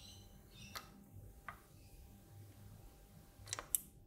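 A few faint, sharp clicks as IC socket pins are hand-soldered with a soldering iron and solder wire, the loudest two close together near the end, over a low steady hum.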